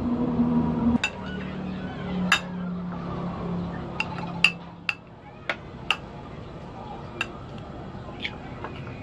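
A metal spoon clinking against a ceramic bowl as it stirs pieces of cooked cow stomach in broth: about nine sharp, irregular clinks. A low hum sits under the first half.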